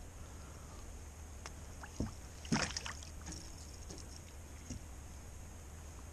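A few light knocks and clatters of fishing gear against a plastic kayak as a fish gripper and rod are handled at the boat's side, the loudest cluster about two and a half seconds in, over a low steady hum.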